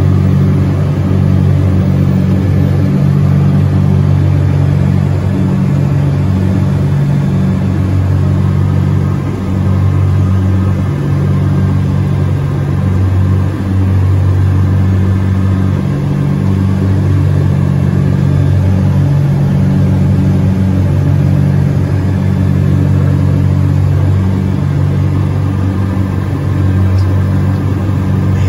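Propeller aircraft's piston engine drone heard inside the cockpit: a loud, steady low hum that wavers slowly, dipping briefly twice about ten and fourteen seconds in.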